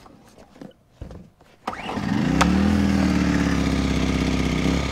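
Predator 1400 inverter generator's small four-stroke engine being pull-started on choke: it catches under two seconds in, revs up quickly and settles into steady running, with a sharp click just after it catches.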